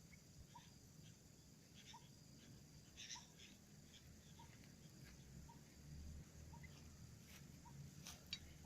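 Near silence, with a faint short pip repeating about once a second.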